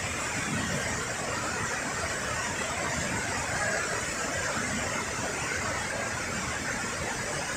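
Steady rushing of fast-flowing river water from a rain-swollen river at a waterfall, an even hiss that does not change.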